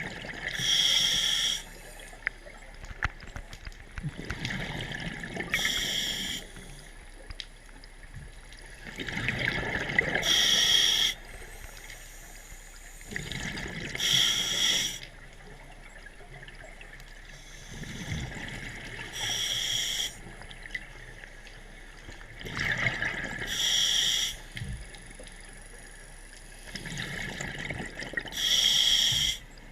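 Scuba diver breathing through a regulator underwater: a short hissing inhale alternating with a longer bubbling exhale, repeating about every four to five seconds, seven breaths in all.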